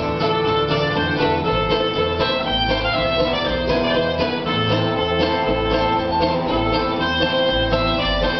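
Acoustic jazz band playing live: a fiddle carrying the melody over guitar accompaniment, with a moving low bass line.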